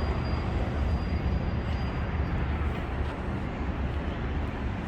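Steady outdoor city background noise heard from high above the street: a low, even rumble of distant traffic with a hiss over it.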